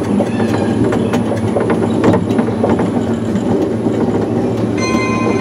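Small electric monorail car running along its elevated track: a steady drive hum with frequent small clicks and rattles from the running gear. A brief high tone joins near the end.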